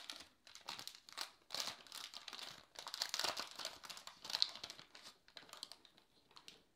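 Wax-paper wrapper of a 1981 Donruss baseball card pack crinkling as it is pulled open and unfolded by hand. The crinkling stops after about four and a half seconds, leaving a few faint ticks.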